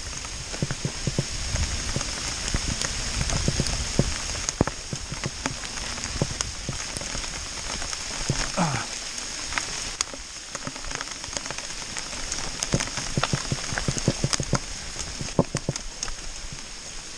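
Rain and hail hitting around the camera as a steady wash of noise. Scattered sharp knocks and rattles run through it, and there is a brief squeal about halfway.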